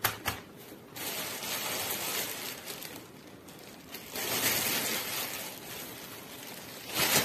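Thin pastilla (warqa) pastry sheets crackling and rustling as they are handled and laid out by hand, in two stretches with a short pause between.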